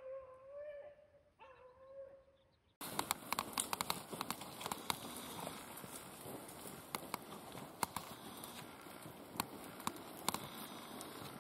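Beagle baying on a rabbit's trail: two drawn-out howling notes with a short break. About three seconds in this gives way to a steady hiss with many irregular sharp crackles and snaps.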